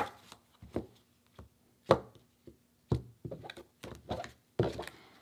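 A tarot deck being shuffled and handled: a series of short, irregular card slaps and taps, about two a second.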